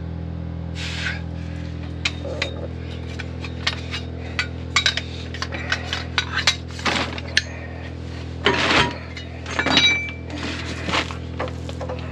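Metal tools and pipe fittings clinking, tapping and knocking irregularly during plumbing work, with a few short louder scraping rushes, over the steady hum of a running generator.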